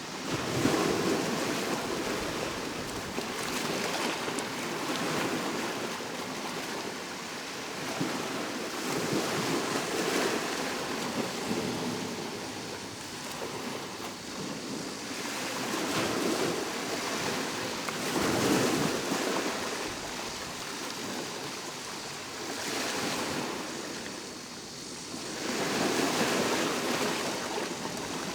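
Ocean waves breaking and washing up a shore, the rush of surf swelling and falling every few seconds.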